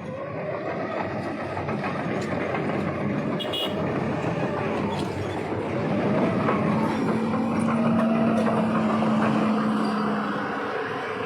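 A heavy vehicle's engine running and passing by. It grows louder to a peak past the middle and eases off near the end, with its pitch wavering, and a steady hum is held for the last few seconds.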